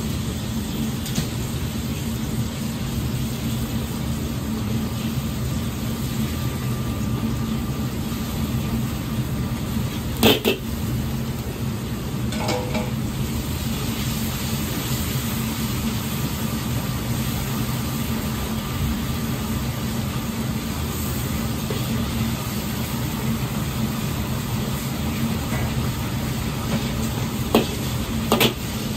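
Chili bean paste (doubanjiang) sizzling in hot oil in a carbon-steel wok as a metal ladle stirs it, over the steady low noise of a wok burner. A few sharp knocks of the ladle against the wok, one about ten seconds in and two near the end.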